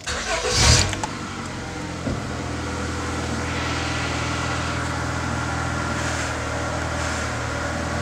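A 2000 Honda Accord's engine starting, with a short loud surge in the first second as it catches, then settling into a steady idle.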